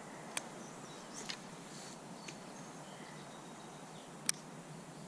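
Quiet outdoor ambience: a steady hiss with three sharp clicks, the loudest near the end, and a few faint high chirps.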